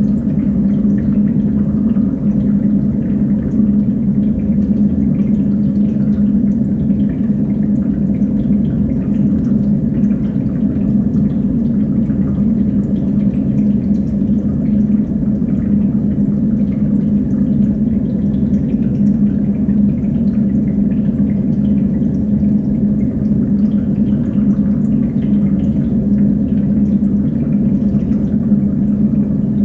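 Water running steadily through a rack of fish tanks, over a constant low hum.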